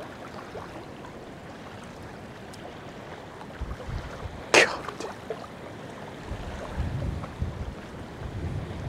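Wind buffeting the microphone in gusts over small waves lapping on a rocky lakeshore, with one short sharp noise about four and a half seconds in.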